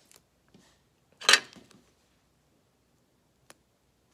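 Adhesive tape pulled off the roll in one short, loud rip about a second in, with faint rustling from handling and a single small click near the end.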